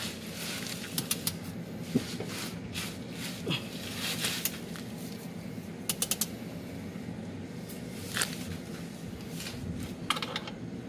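Scattered sharp clicks and clinks of hand tools on the engine mount bolts, with a quick run of four clicks about six seconds in, over a steady low hum.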